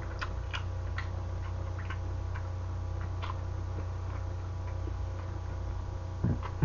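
Mouth clicks and smacks of chewing mouthfuls of braised pork trotter, scattered and irregular, over a steady low electrical hum. A brief louder sound near the end.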